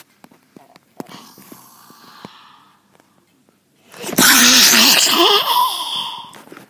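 Faint rustling as the phone is handled. About four seconds in, a person yells loudly and distortedly right into the microphone for about two seconds, then breaks off suddenly.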